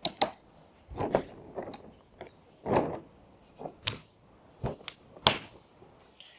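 Handling sounds of a windsurf boom end and its outhaul rope as the boom is set into the hole at the sail's clew: a scattered series of short knocks, clicks and rope rubs, the sharpest knock about five seconds in.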